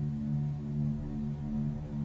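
Slow ambient background music: a chord of low notes held steadily.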